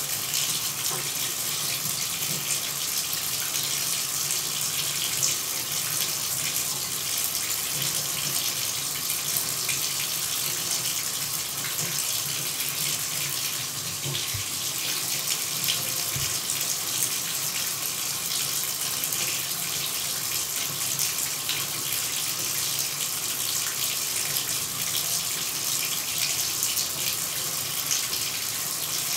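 Shower running steadily: an even hiss of falling water spray that does not change.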